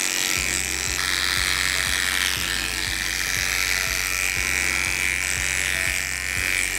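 Cordless dog clipper with a snap-on comb buzzing steadily as it clips a miniature poodle's coat. Background music with a steady beat comes in about half a second in.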